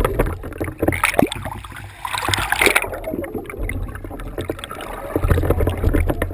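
Mountain bike ridden over a rough, muddy trail: a steady low rumble and hiss with many quick clicks and knocks as the bike rattles over the ground.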